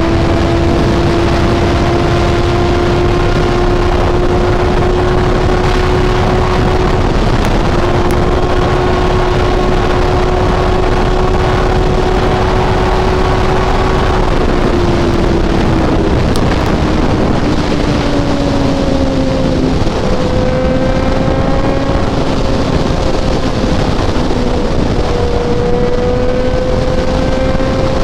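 Kawasaki Z800 inline-four motorcycle engine cruising at highway speed under heavy wind rush. Its pitch climbs slowly, falls over a few seconds past the middle as the revs come down, then holds steady at the lower note.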